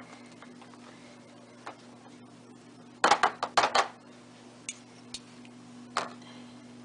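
Small knife clinking against a bowl and cutting board while scooping and spreading goat cheese: a quick run of four or five sharp clicks about three seconds in, with a few lighter single taps before and after. A steady low hum runs underneath.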